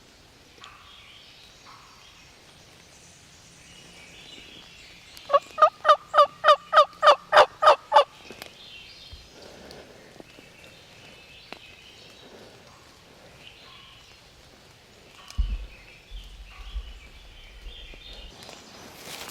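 Turkey calling: a run of about eleven loud, evenly spaced notes lasting about three seconds, starting about five seconds in. Faint small-bird chirps are heard around it, and a few low thumps come near the end.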